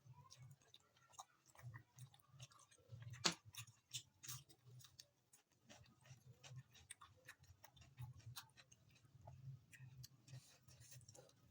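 Faint close-up eating sounds: chewing with many small, irregular mouth clicks and smacks, and one sharper click about three seconds in.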